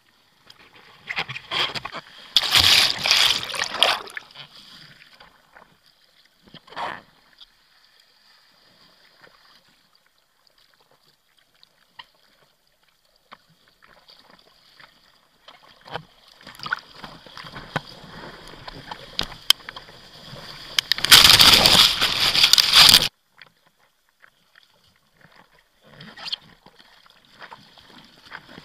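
Seawater splashing and rushing over a bodyboard and the action camera close to it in the surf. There are two loud rushes, one about two seconds in and a longer one about two-thirds of the way through that cuts off suddenly, with smaller splashes and quiet stretches between.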